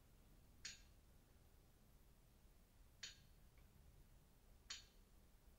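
Near silence with three faint, short clicks of a computer mouse, about a second in, about three seconds in and near the end.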